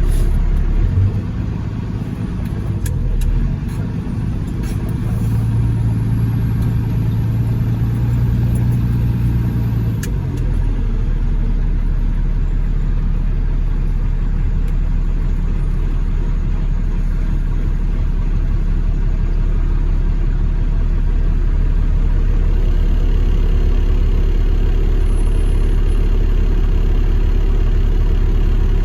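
A motor vehicle's engine running steadily, a low rumble throughout.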